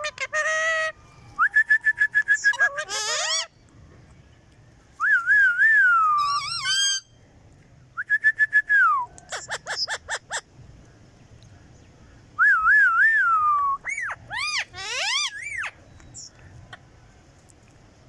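Rose-ringed parakeets whistling and chattering: a string of short whistled calls, some held, some wavering or gliding up and down in pitch, with a quick run of clicks about halfway through.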